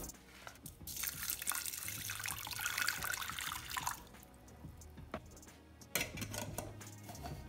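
Hot water pouring into a steel pressure cooker over rice ada flakes, a steady splashing hiss from about a second in that lasts about three seconds. Near the end a single sharp metallic clack as the cooker's lid is set on.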